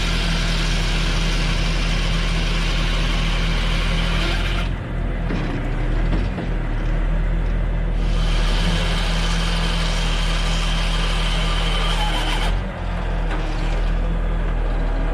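A heavy engine runs steadily under two long spells of a chainsaw cutting at full throttle, each about four to five seconds, starting and stopping abruptly.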